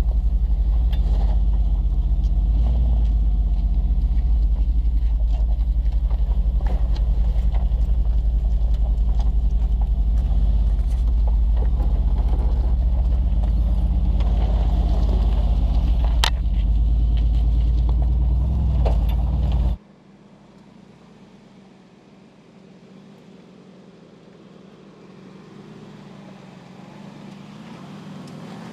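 Mercedes-Benz G 500's 4.0-litre biturbo V8 pulling at low speed off-road, heard close up from under the body as a heavy low rumble with scattered sharp clicks of dirt and stones, the loudest about 16 s in. At about 20 s it cuts abruptly to a far quieter engine sound that slowly grows louder as the vehicle approaches.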